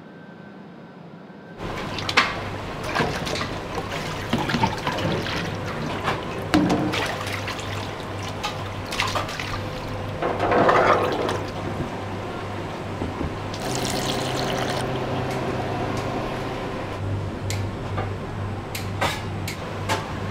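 Water running and splashing in a stainless kitchen sink as udon noodles are rinsed and worked by hand in a plastic basket, starting about a second and a half in. A steady low hum runs underneath.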